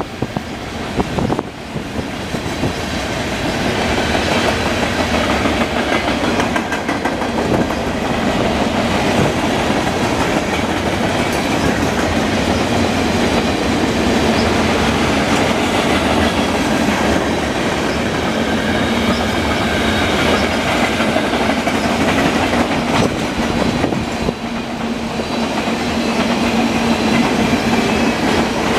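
Freight cars of a manifest train rolling past close by: a steady clatter and rumble of steel wheels on the rails and the cars' running gear.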